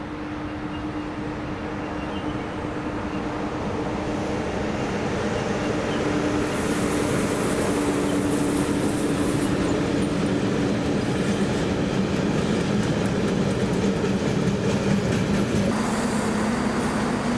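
A train running along the track, growing louder as it approaches over the first several seconds and then holding loud, with a steady hum that shifts lower in pitch near the end.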